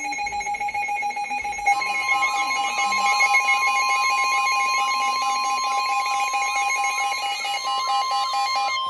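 Emergency Alert System alert tones: a steady electronic alarm tone, joined about two seconds in by a second, higher steady tone, with a rapid warbling pattern running over both.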